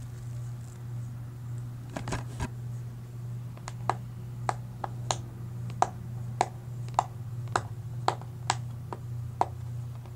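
Hands working at a plastic DVD case and its sticker: a few soft knocks, then a run of sharp clicks and ticks at about two a second, over a steady low hum.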